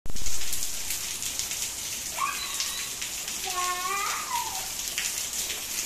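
Heavy rain falling steadily, a dense hiss with many separate drop ticks on the wet paving and an open umbrella. Two short high-pitched calls come through about two seconds in and again near four seconds.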